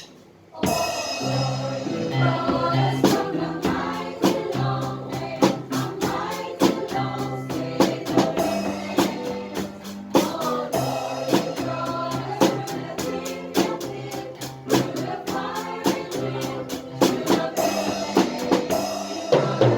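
Gospel song with a choir singing over a drum kit played to a steady beat, after a brief silence of about half a second at the start.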